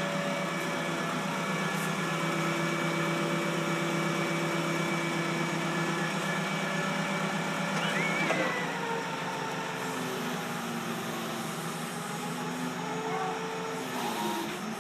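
A forklift running steadily. About eight seconds in, its pitch drops, and afterwards its tones shift up and down as it manoeuvres.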